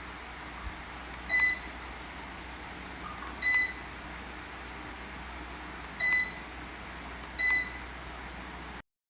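Deka F5DC DC-motor ceiling fan beeping four times, short high beeps at uneven gaps: the fan's receiver acknowledging remote-control button presses. A faint click comes just before each beep, over a steady hiss.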